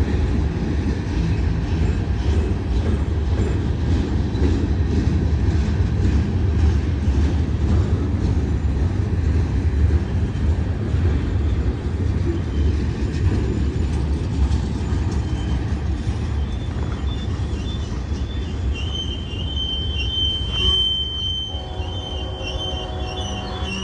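BNSF freight train rolling past slowly with a heavy low rumble. About three-quarters of the way through, its brakes start a steady high-pitched squeal, joined near the end by a cluster of lower squealing tones, as the train is slowed toward a red signal.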